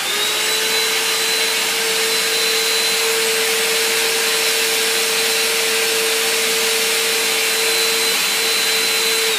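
Small portable Bissell vacuum cleaner switched on and running steadily, a loud rushing noise with a high motor whine, then switched off near the end.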